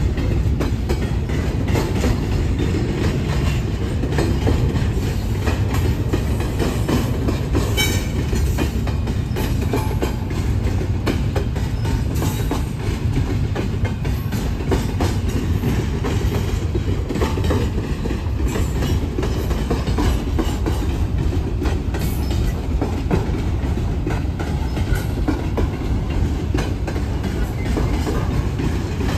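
Double-stack container cars rolling steadily past: a continuous rumble with the wheels clicking over the rail joints.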